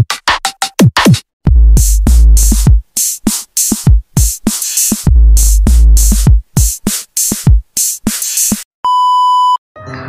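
Electronic intro music with a drum-machine beat: rapid falling-pitch kick drums and sharp hits over deep bass swells. Near the end the beat stops and a steady high beep sounds for under a second.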